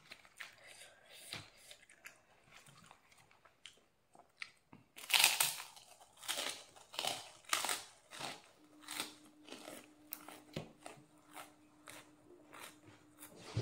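Close-up crunching bites and chewing of a crisp white cracker eaten by hand, in a run of loud crunches about five to eight seconds in, with softer chewing and small clicks around them. A faint steady hum starts about nine seconds in.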